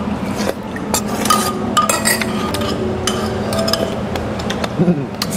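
Spoons clinking and scraping against stone-black earthenware soup bowls, a run of short sharp clinks, some with a brief ring, as the last of the soup is scooped up.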